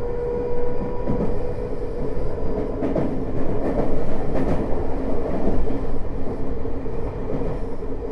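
Tokyo Metro 05 series train with Mitsubishi IGBT VVVF traction equipment running between stations, heard inside the car: a steady rumble of wheels on rail with a few rail-joint clicks. A steady whine fades out about a second in.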